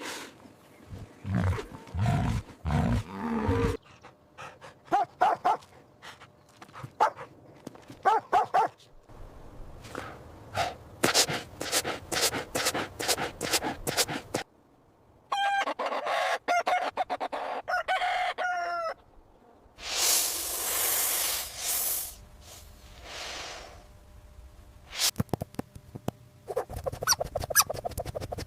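A sequence of chicken sounds: short repeated clucks, then a rooster crowing in one long wavering call about halfway through, with other short animal calls around them.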